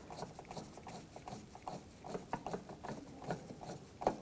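Faint, irregular small clicks and taps from a T20 Torx driver turning the captive screw that holds the front door handle in a Volkswagen Jetta door. A slightly sharper tap comes near the end.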